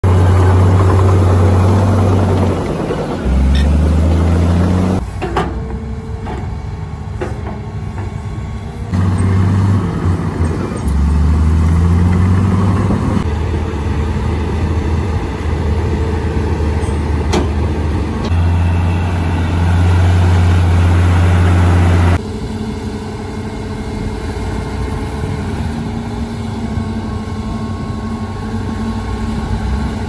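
Heavy diesel engines of a Hitachi excavator and a stuck dump truck running and revving under load, their low note rising and falling. The sound drops and jumps sharply in level a few times, about 5, 9 and 22 seconds in.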